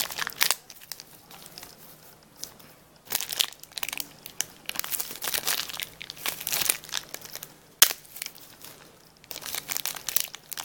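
Packaging wrapper crinkling and rustling in irregular bursts as it is handled and opened, with one sharp click about eight seconds in.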